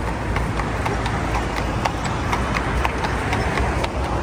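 Carriage horse's shod hooves clip-clopping on asphalt at a walk, about two or three hoof strikes a second, over a steady low rumble.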